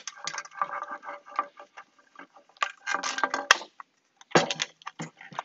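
Rubber strip being pressed by hand into the T-track of an extruded aluminium roof-rack load bar: rubbing and squeaking in short irregular bursts with small clicks, and one sharp click about three and a half seconds in.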